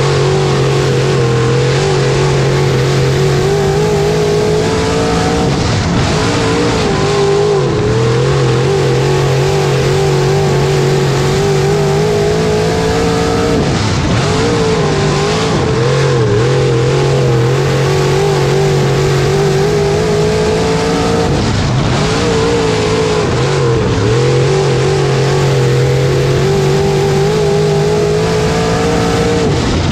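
Dirt-track modified's freshly rebuilt Maniac Racing Engines motor heard from inside the cockpit, run hard down the straights. Its pitch dips and climbs back four times, about every eight seconds, as the driver lifts for the corners and gets back on the throttle. Tire and dirt noise runs underneath.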